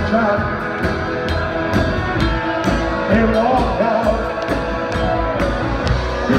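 Live rock and roll band playing: a singer over acoustic guitar, upright bass and drums, with the drums keeping a steady beat of about two hits a second.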